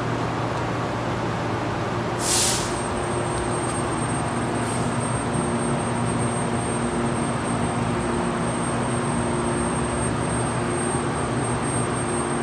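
A steady machine hum at an even level, with a short hiss about two seconds in.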